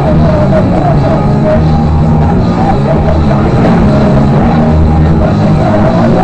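A rock band playing live, loud and dense, with drums and amplified instruments in a small room.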